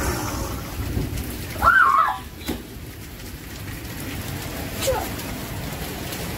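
Steady heavy rain falling on pavement and grass. There is a low rumble in the first second or so, and a short high-pitched cry about two seconds in, the loudest sound.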